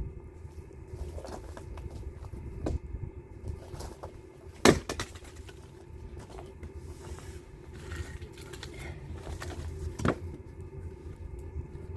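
A few sharp knocks of firewood, the loudest about five seconds in, over a low steady rumble.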